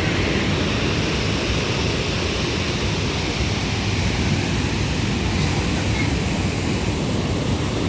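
Steady rushing of sea surf mixed with wind on the microphone, an even noise that holds at one level.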